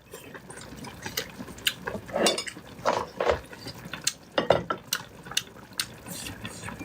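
Utensils clinking and scraping against a hotpot of liquid as the food in it is stirred, in irregular sharp knocks.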